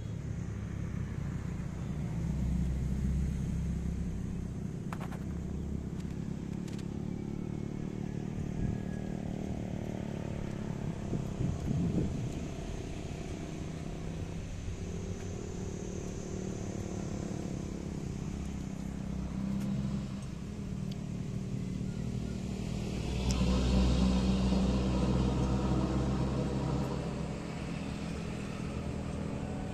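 Low rumble of passing motor vehicles, swelling twice: once a few seconds in and again, louder, near the end.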